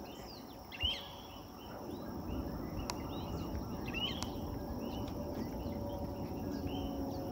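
Small birds chirping and calling repeatedly, with a few quick down-slurred calls, over a low, steady background rumble.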